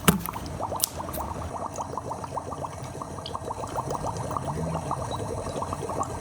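Hand-made foley sound effects: a dense, steady crackle of many small liquid-like ticks and bubbles, with one sharp knock right at the start.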